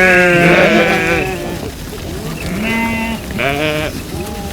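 Sheep bleating: one long, wavering bleat, the loudest, then two shorter bleats a couple of seconds later.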